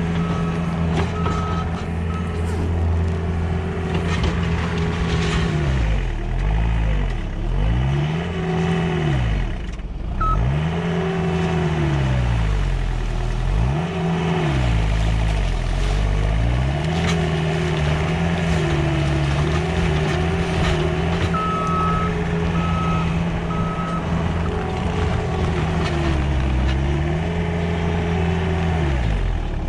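Manitou skid steer's diesel engine working under heavy load, its pitch sagging and recovering again and again as the machine pushes and digs into frozen ice banks. A backup alarm beeps in short runs at the start and again about two-thirds of the way through.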